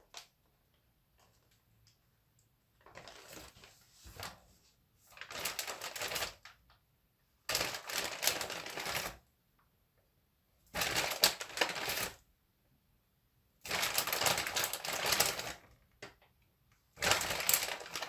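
Frozen tater tots clattering as they are handled and laid in rows in a casserole dish. The sound comes in repeated bursts of dense clicking, each a second or two long, with short quiet pauses between.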